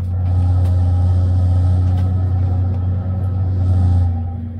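A loud, steady, low engine drone with a dense stack of overtones. It dips briefly near the end.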